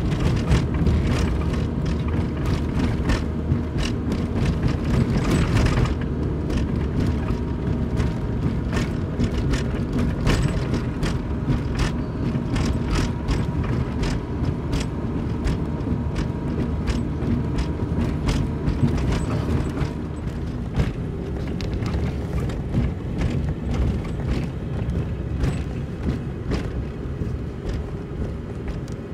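Car driving slowly on a cracked, patched rural asphalt road, heard from inside: steady engine and tyre rumble with frequent short knocks and rattles as the car goes over the cracks and bumps.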